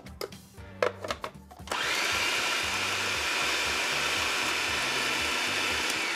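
A few light knocks, then about two seconds in a food processor starts and runs steadily, blitzing rinsed black beans into ground oats and chocolate chips to break the beans up.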